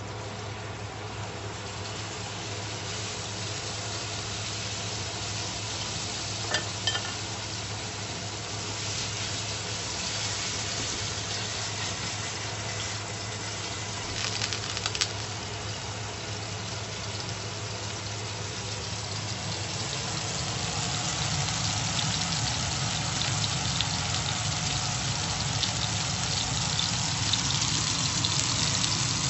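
Beef steak sizzling in hot oil in a nonstick frying pan, the sizzle growing steadily louder as it cooks, with a few short sharp clicks about a quarter and halfway through.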